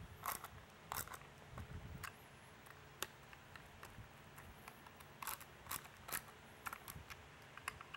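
Hand screwdriver driving long screws into a polycarbonate siren/speaker housing: faint, irregular clicks and scrapes of the bit and screw, with a cluster of quicker clicks in the second half.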